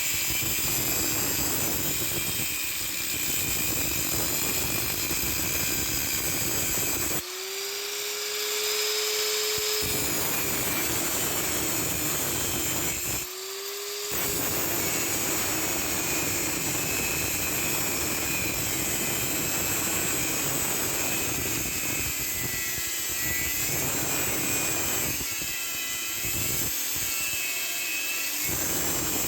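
Angle grinder grinding metal, a steady harsh rush. Twice, about seven and thirteen seconds in, it comes off the work and the motor's free-running whine rises briefly before it bites in again.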